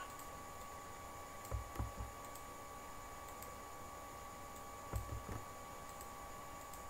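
Clicking from working a computer: two short clusters of about three clicks with dull low thumps, about a second and a half in and again about five seconds in, over a faint steady background hum.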